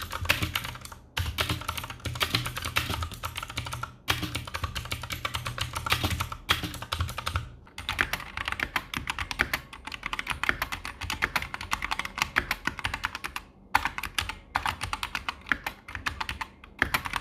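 Typing on an AORUS K9 Optical mechanical keyboard with red linear optical switches: fast runs of key clicks, broken by short pauses.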